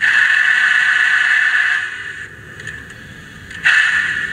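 Sound-decoder steam effects from an Athearn N scale 4-6-6-4 Challenger model locomotive: a long burst of steam hiss lasting nearly two seconds, then a quieter stretch, then another hiss starting shortly before the end.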